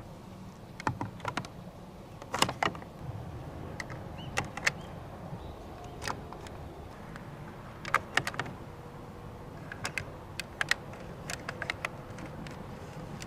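Marbles clicking and knocking irregularly as they run down a nagashi somen spiral water slider, in scattered single clicks and quick clusters, over the steady noise of the slider's electric pump and flowing water.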